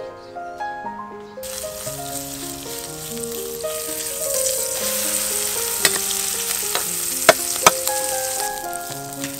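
Tiny-shrimp and egg fritter batter sizzling as it fries in hot oil in a metal pan. The sizzle starts about a second and a half in and fades near the end, with a few sharp clicks of a metal spoon against the pan. Background music with plucked notes plays throughout.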